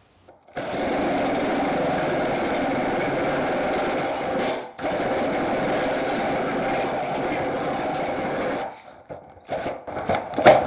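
Hand-held electric drill driving a step drill bit through the painted sheet-metal guard of a Toyota Prado 150, a steady whine of the motor and cutting bit. It runs for about four seconds, stops briefly, then runs another four seconds before stopping, followed by a few faint clicks.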